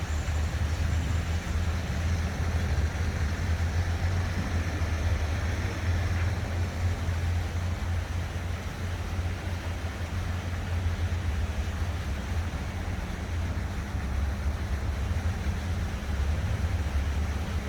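Steady urban ambience: a continuous low rumble of distant city works and traffic under an even hiss of running water from fountains.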